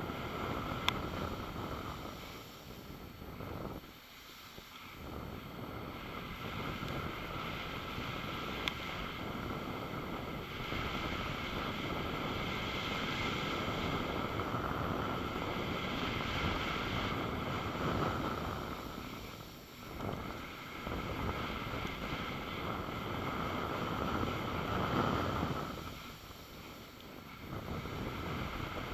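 Wind rushing over the camera microphone during a downhill off-piste ski run, together with the hiss of skis sliding on snow; the noise rises and falls, dropping away briefly a few times.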